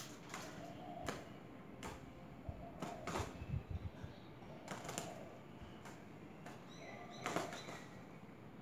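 Sharp ticks at uneven intervals, about one a second, of water dripping from a wet roof onto the sheeting below. A brief high chirp comes about seven seconds in.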